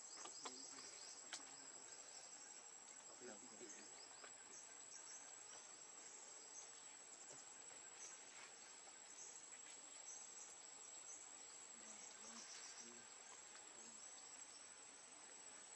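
Near silence, with a faint steady high-pitched insect drone of crickets or cicadas.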